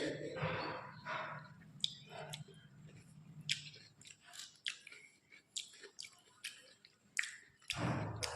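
Close-miked chewing of food, with many short, sharp wet mouth clicks. A louder, longer noisy sound comes shortly before the end.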